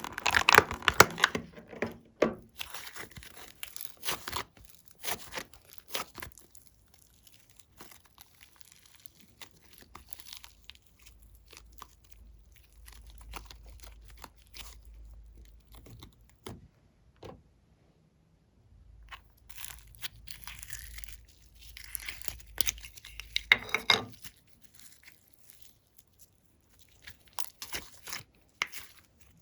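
Hands kneading, stretching and pressing glossy slime, which gives off irregular sticky clicks, pops and crackles. The busiest spells are at the start and again near the end, with quieter stretches between.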